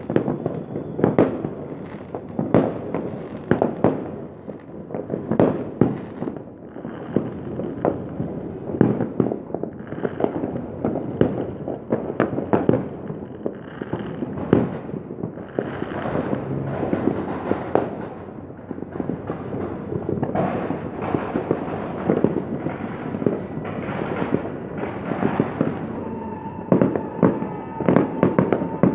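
Many fireworks going off at once, with overlapping bangs and crackles in an irregular, unbroken barrage. A steady high tone joins in near the end.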